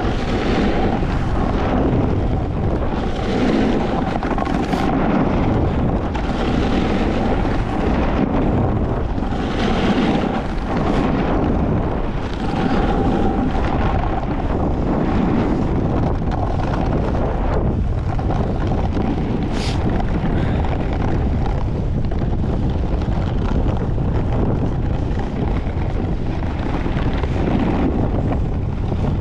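Wind buffeting the microphone of a camera carried on a fast snowboard run, over a low rumble, with the board's edge scraping on groomed snow in hissing swells every second or two as it turns.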